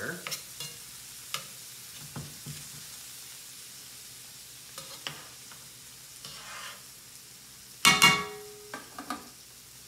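Shallots and capers sizzling in brown butter in a skillet, with a metal spatula scraping and tapping the pan. A louder clatter comes about eight seconds in.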